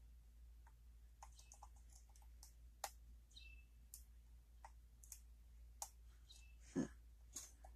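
Faint, irregular small metallic clicks and scrapes of a lock pick and tension wrench working the pins of a pin-tumbler challenge lock, with a louder knock near the end.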